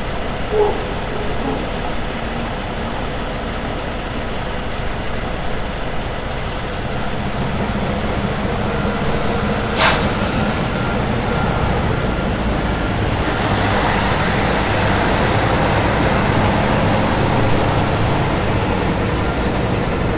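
Peterbilt dump truck diesel engines running steadily, with one short, sharp air-brake hiss about ten seconds in; from about thirteen seconds the engine noise grows louder.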